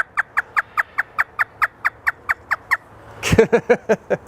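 African grey parrot imitating a laugh: a rapid run of about fourteen short notes, each falling in pitch, roughly five a second, then a louder, voice-like burst near the end.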